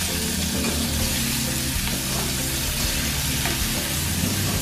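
Onion, garlic and ginger sizzling steadily in hot margarine in a nonstick wok, stirred with a spatula: aromatics being sautéed until fragrant.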